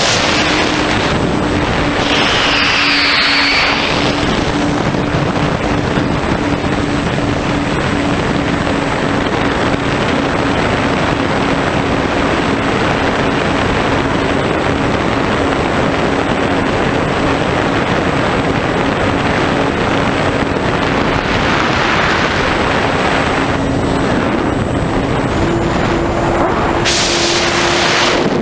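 Onboard audio of an FPV model plane in flight: the electric motor and propeller hum at a steady pitch under loud wind rush over the airframe and microphone. About 25 seconds in, the pitch steps up as the throttle is raised, and a few louder gusts of wind rush pass.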